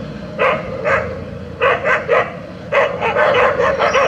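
Street dogs barking in short, sharp barks: a few spaced barks, then a quicker run of about half a dozen near the end.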